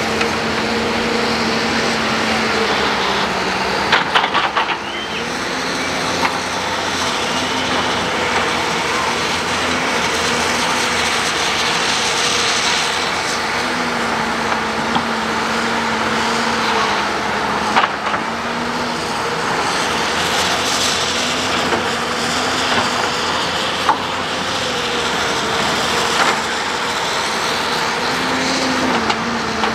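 Crawler excavators' diesel engines running under digging load, their steady note dipping and rising as the hydraulics work. A few sharp knocks are heard, the first about four seconds in.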